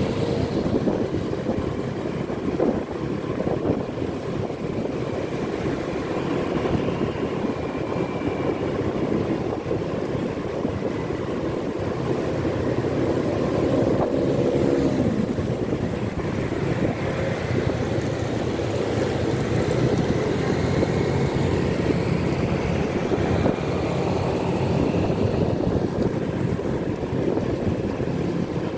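Car driving along a wet street: steady engine and tyre noise, with the traffic around it, faintly rising and falling now and then.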